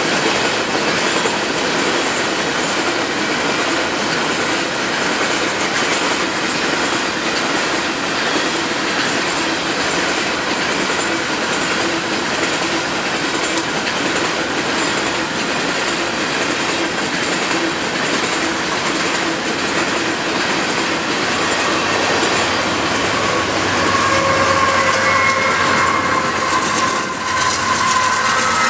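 Empty coal hopper cars rolling past: a steady rumble and clatter of steel wheels over the rail. Near the end a diesel locomotive in the middle of the train comes by, adding a low engine drone and a steady whine.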